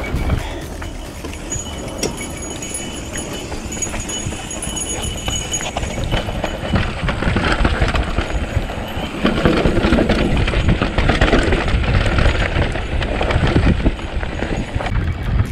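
Mountain bike rolling fast down a rough dirt trail: tyres crunching over dirt and loose rock, with rattling knocks from the bike. It gets louder about halfway through.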